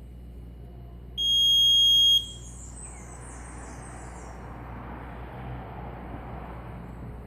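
Alarm buzzer of an FPGA real-time clock sounding one loud, steady high-pitched beep about a second long, starting about a second in: the clock has reached a set alarm time.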